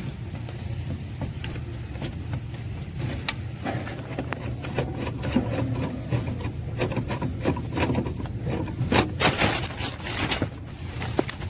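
Hand work on a car's dashboard parts: scattered clicks, rubbing and scraping of tools and plastic, growing busier in the second half with a dense scraping stretch near the end, over a steady low hum.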